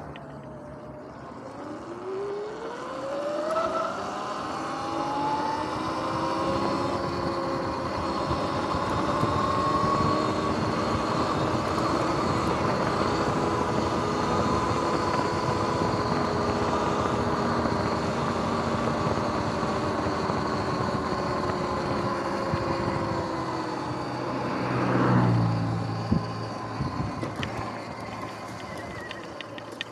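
Sur-Ron X electric dirt bike's motor whining, rising in pitch as it accelerates over the first few seconds, then holding steady at speed under wind and tyre noise. Near the end the whine falls away as it slows, with a brief louder rush.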